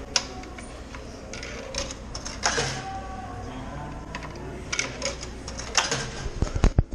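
Vending machine dispensing: clicks and mechanical clatter from the machine, then a quick run of heavy thumps near the end as the item drops into the pickup bin.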